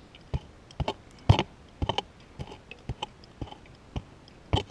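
Prospecting pick chopping down into packed quartz gravel and soil, with about two strikes a second, the loudest a little over a second in.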